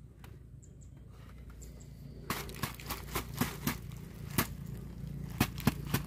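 Irregular sharp clicks and crackles of a fish trap being handled as a stiffened snake wedged on its rim is pried out, starting about two seconds in.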